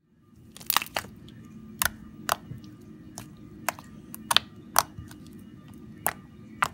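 Glitter slime being squeezed and worked by hand, giving sharp, irregular clicks and pops, about ten in all.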